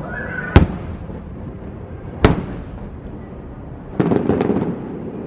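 Fireworks shells bursting overhead: two sharp booms about a second and a half apart, then a short spell of rapid crackling about four seconds in.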